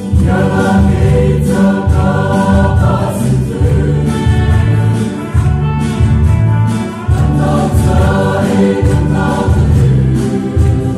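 Mixed choir of men and women singing a Mara gospel song in harmony, over a steady pulse of low bass notes.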